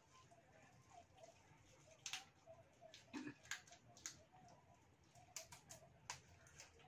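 Faint, irregular sharp clicks and cracks of fried mantis shrimp shells being peeled and bitten by hand, with a cluster of cracks about halfway through.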